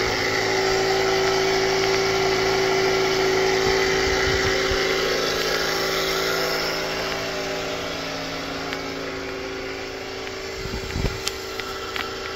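A motor running steadily with a constant hum, growing a little quieter toward the end, with a few light clicks near the end.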